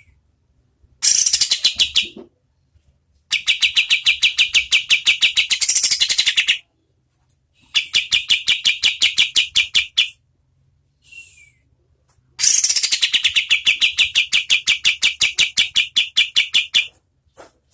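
White-shouldered triller (kapas tembak) singing its rapid 'shooting' trill: four bursts of fast, evenly repeated sharp notes, about ten a second, the longest lasting some four seconds, with brief pauses between.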